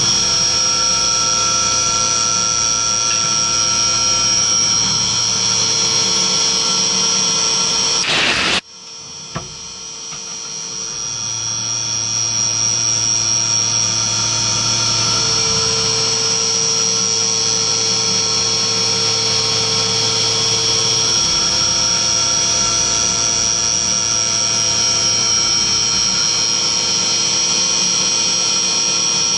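CNC milling machine cutting aluminium: a 10 mm flat end mill spinning at 7000 rpm on an outside contour pass, giving a steady high-pitched whine over a flood-coolant hiss. About eight seconds in, the sound breaks off sharply and then builds back to full over a few seconds.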